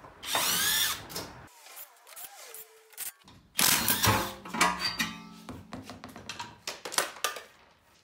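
Cordless impact wrench undoing and spinning out a car's wheel bolts: a whirring burst near the start, another about three and a half seconds in, then several short bursts.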